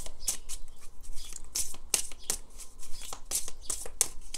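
Tarot cards being shuffled and handled: a string of irregular crisp snaps and papery rustles.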